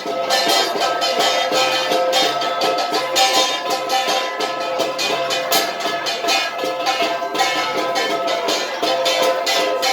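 Gangsa, flat bronze gongs, played as an ensemble: a fast, steady rhythm of struck notes over ringing, sustained gong tones.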